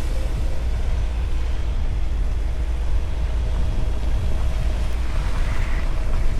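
Mahindra Thar running with a steady low rumble and a faint engine hum, with a brief higher call near the end.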